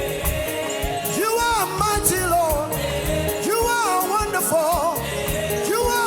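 Live gospel worship music: a band with steady drums and cymbals, and a high voice singing wavering vocal runs in short phrases over it.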